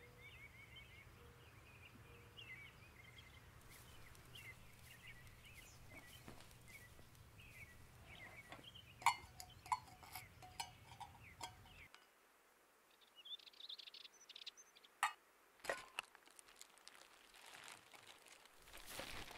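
Faint bird chirps over a low hum. From about halfway there are scattered small clicks and clinks as objects are handled, then rustling as a plastic bag is handled.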